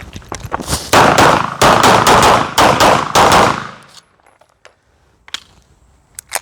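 Rapid string of 9 mm pistol shots fired in quick succession during a practical-shooting (IPSC) stage, dense for about three and a half seconds. A few fainter shots follow, then one sharp shot near the end.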